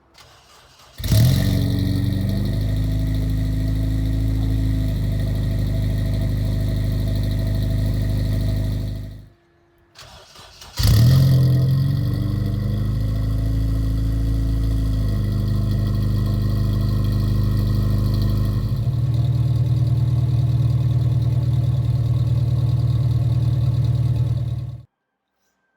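Honda Civic Type R (EP3) four-cylinder engine breathing through a Spoon N1 exhaust and resonator. It starts, flares briefly, settles to a steady idle, and is shut off about eight seconds later. It is started again with the same flare and idles, its note changing partway through, before being shut off near the end.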